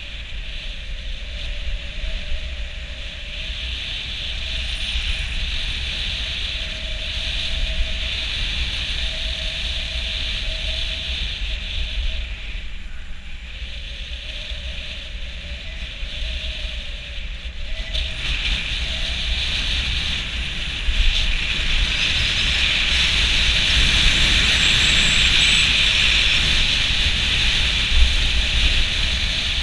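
Wind buffeting a helmet-mounted GoPro and skis hissing over groomed snow during a fast downhill ski run. A faint wavering whistle runs through the first half, and the rush grows louder about two-thirds of the way in.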